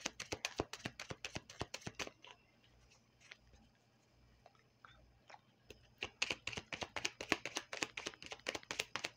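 Deck of cards being shuffled by hand: a fast run of soft card clicks, stopping for a few seconds in the middle and then starting again.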